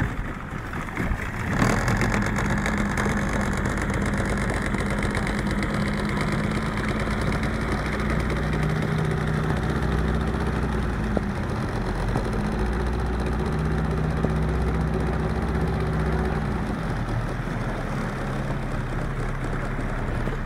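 Motorboat engine running steadily under a constant hiss, its pitch stepping up about eight seconds in and settling back down a few seconds before the end.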